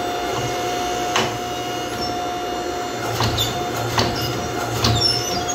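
Power hammer striking a red-hot steel axe head held in tongs. A handful of single blows land at uneven gaps over the steady hum of the running machine.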